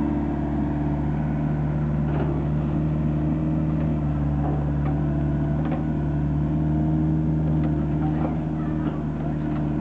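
An engine running steadily at a constant speed, with a few faint knocks over it.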